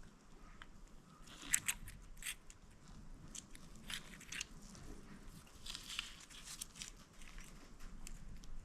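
Scattered light clicks and clinks of metal transmission parts and hand tools being handled during disassembly, the sharpest about a second and a half in.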